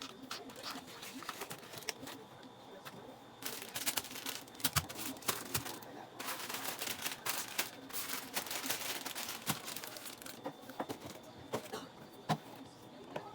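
Plastic bags and packaging crinkling and rustling as items are handled, with scattered clicks and knocks of things being picked up and set down.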